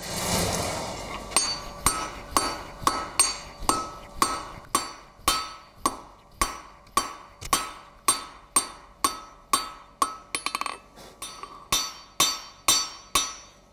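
A forging hammer strikes the hot end of a 12 mm square steel bar on the anvil, drawing out a chisel taper. The blows come steadily at about two a second, each with a short metallic ring. A short rush of noise comes before the first blow, and a quick flurry of lighter taps falls about ten seconds in.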